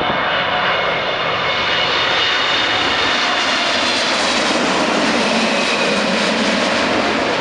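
Boeing 777-200ER's twin turbofan jet engines passing low overhead on landing approach: a loud, steady jet roar with high fan whine tones above it, the roar growing deeper in the second half as the aircraft goes over.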